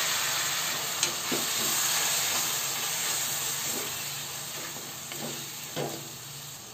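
Onion, tomato and spice masala sizzling in oil in a metal kadhai just after a splash of water was added, stirred with a wooden spatula that scrapes the pan a few times. The sizzle slowly dies down as the water cooks off over low heat.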